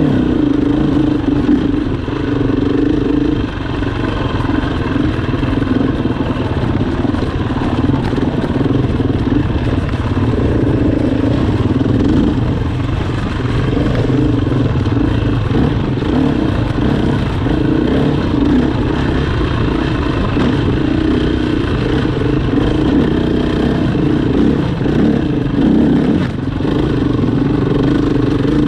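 Enduro motorcycle engine running loudly and continuously, its pitch wavering up and down.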